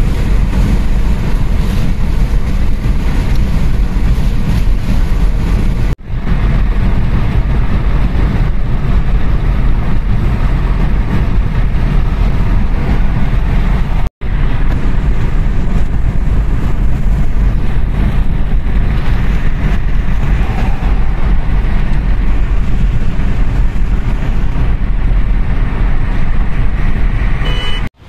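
Steady road and engine noise inside a Kia Seltos SUV's cabin at highway speed: a low, even rumble of tyres and wind. It breaks off for an instant twice, about six and fourteen seconds in.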